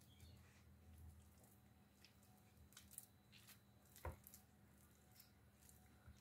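Faint squishing and light taps of a silicone spatula spreading mashed potato in a glass baking dish, over a low steady hum, with one sharper tap about four seconds in.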